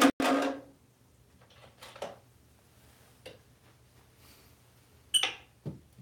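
African grey parrot: a short voiced sound right at the start, then scattered light taps and clicks of claws and toys on a counter top. About five seconds in there is a short, sharp high-pitched squeak, followed by a soft knock.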